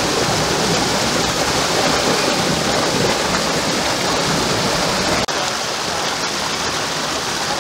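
Mountain stream rushing and cascading between boulders: a steady, loud wash of white water. About five seconds in it cuts abruptly to a lighter flow with less low rumble.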